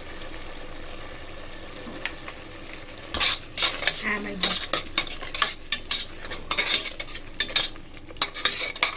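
Masala sizzling in a pan. From about three seconds in, a spoon clatters and scrapes against the pan in quick strokes as the freshly added spice powders are stirred in and fried.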